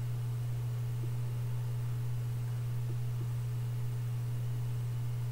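Steady low hum: one constant low tone with a faint higher overtone, unchanging throughout, of the kind picked up by a recording setup rather than made by any action.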